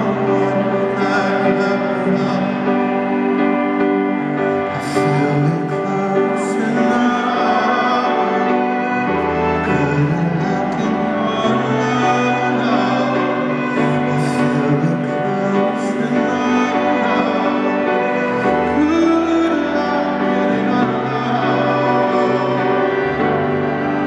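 Live concert music: a slow ballad with held chords and singing, recorded from among the audience in an arena.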